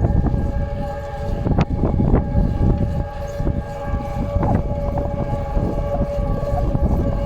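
Electronic civil-defence alarm sirens sounding a steady, unwavering tone, two pitches heard together, over a low rumble.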